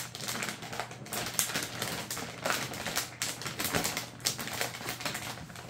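Graphics card box being opened and its plastic-wrapped packaging handled: a run of irregular small clicks and crinkles.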